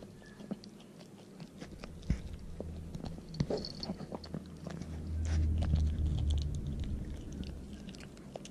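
A dog chewing and crunching on a chicken foot, with many short sharp cracks as its teeth work the bones. A low rumble swells for a second or so past the middle.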